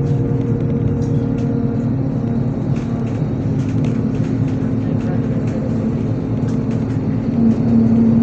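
Ride inside a MAZ 103.486 city bus under way: the diesel engine and drivetrain drone with a steady whine over road and tyre noise. The whine gets louder near the end.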